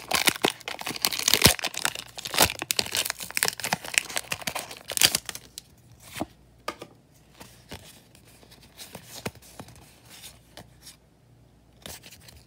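Foil wrapper of a Pokémon trading card booster pack torn open and crinkled, a dense crackling for about the first five seconds. After that, only a few soft scattered clicks as the cards are handled.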